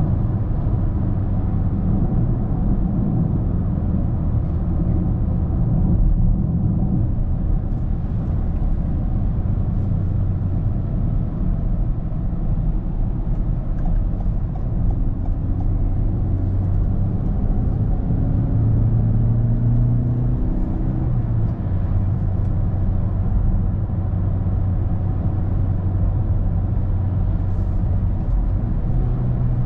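Cabin sound of a Toyota Corolla with the 1.6 Valvematic four-cylinder petrol engine on the move: a steady low rumble of engine and road noise. Around the middle the engine note climbs for several seconds, then drops back.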